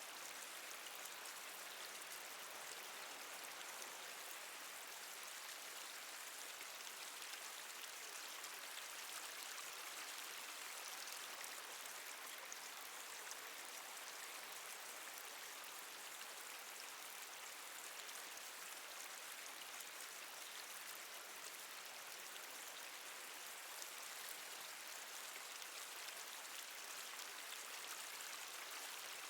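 Water dripping and trickling steadily: a fine, even hiss of running water with many small drops falling, made to sound as if inside a cave.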